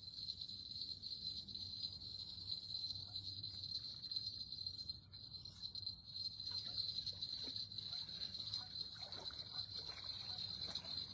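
Night insects in a steady, unbroken high chorus, with faint scattered taps and rustles in the second half.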